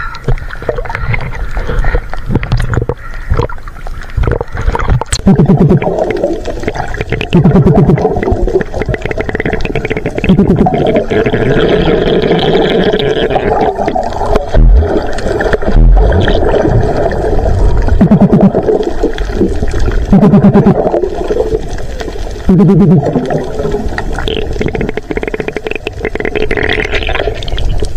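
Muffled underwater sound picked up through a submerged camera: a dense low wash of water noise, with several short low hums at irregular intervals.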